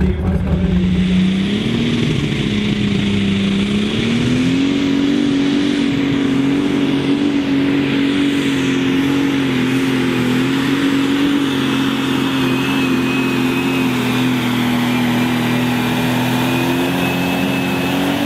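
Limited Super Stock pulling tractor's diesel engine at full throttle while pulling the sled. Its pitch climbs in two steps in the first four seconds and then holds high and steady, with a thin high whine joining in the second half.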